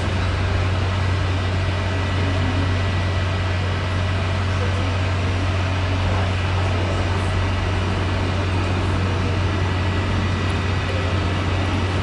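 Boeing 737-500's twin CFM56-3 turbofan engines at takeoff thrust as the airliner lifts off and climbs away: a steady jet rumble with a strong low hum.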